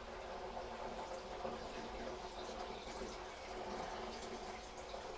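Grape wash pouring in a steady stream from a large plastic bucket through a funnel into a stainless-steel still pot, filling the pot.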